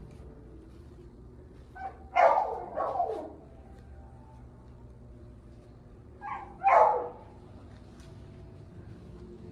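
A dog barks in two bouts, the first about two seconds in and the second about four seconds later. Each bout is a short yip followed by louder barks that fall in pitch.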